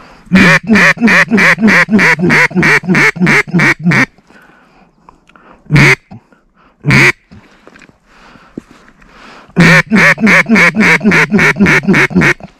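Duck call blown close by, giving mallard hen quacks in quick runs of about three a second: about a dozen, then two single quacks, then another run of about ten near the end.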